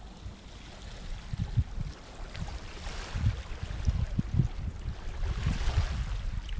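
Wind buffeting the microphone in uneven low gusts, over a soft rushing of small waves washing onto the rocky shore that swells about three seconds in and again near the end.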